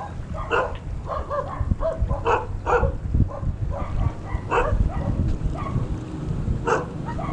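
A dog barking and yipping in short, repeated calls.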